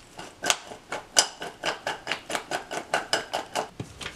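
Oiled, seasoned potato sticks tossed in a stainless steel bowl, clattering against the metal in a regular rhythm of about four knocks a second, each with a faint metallic ring.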